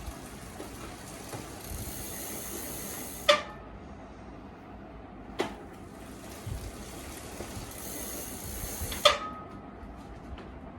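Shimano SLX bicycle disc brake applied twice: a hissing rub of pads on rotor rises each time and ends abruptly in a short, loud squeal as the wheel stops. This is the brake squeal the pads are known for.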